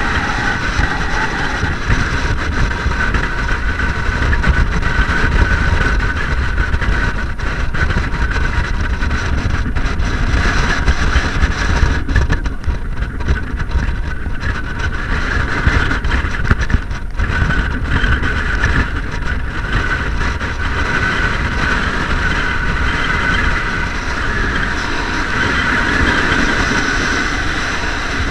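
Strong wind buffeting the camera microphone: a loud, uneven low rumble with a steady higher hiss over it.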